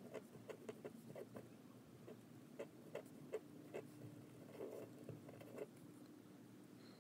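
Faint scratching and ticking of a Jinhao fountain pen's nib on paper as it writes a word in short strokes.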